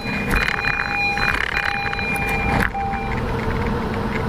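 Wind and road rumble on a moving bicycle's camera, with a steady electronic buzzer-like tone, broken by short gaps, that stops about three seconds in.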